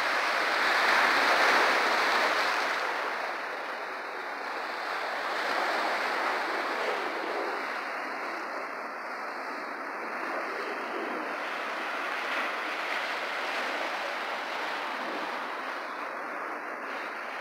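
Ocean surf washing over a rocky shore: a steady rushing that swells loudest in the first few seconds, then settles.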